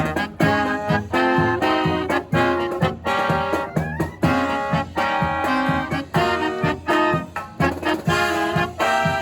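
A live brass marching band playing an upbeat swing/jazz tune, with trumpets, trombones and saxophones over a steady drum beat.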